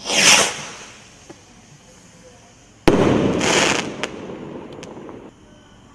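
Firework rockets from an Afterburner rocket pack: a brief rushing whoosh as one launches at the start, then about three seconds in a sudden sharp crack with a loud rush of sound lasting about a second as a rocket bursts, fading away afterward.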